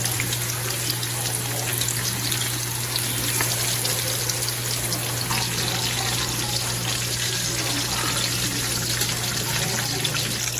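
Breaded chicken breasts sizzling in hot oil in a skillet: a steady crackling hiss, with a steady low hum underneath.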